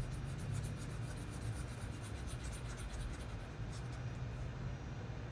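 A pen stylus rubbing back and forth on a tablet surface in many quick scratchy strokes, erasing handwritten work, over a steady low hum.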